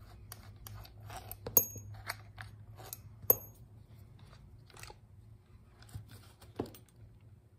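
A Briggs and Stratton double-barrel carburetor being worked off its intake manifold by hand: small metal parts rattle and click, with two sharp ringing metallic clinks about a second and a half apart and a duller knock near the end.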